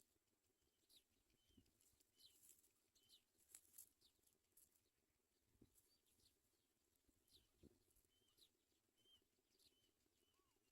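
Faint, thin, high bird chirps, short downward-sweeping notes repeated about once a second, with a few soft clicks in between.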